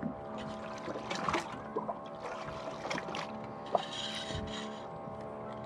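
A steady hum, with scattered small knocks and brief splashes of water.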